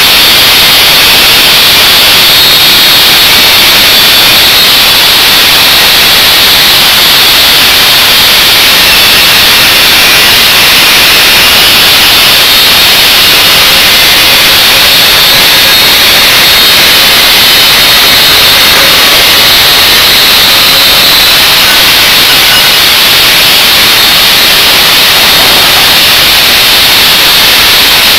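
Angle grinder cutting through the steel shell of a Copeland scroll compressor: a steady, loud, high-pitched grinding hiss that runs without a break.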